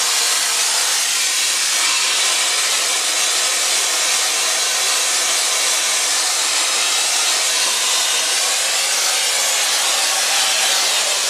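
Spray gun of a mortar spraying machine hissing steadily as compressed air atomises a fine jet of mortar.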